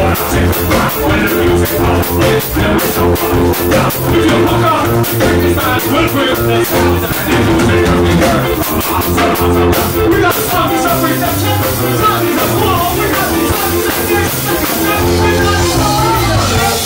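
Live ska band playing: drums, electric guitar, bass and brass, with a male lead vocal over the top.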